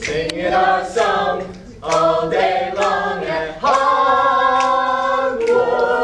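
A small mixed a cappella group singing in harmony. Several short sung phrases lead into a chord held for about two seconds, and the chord changes near the end.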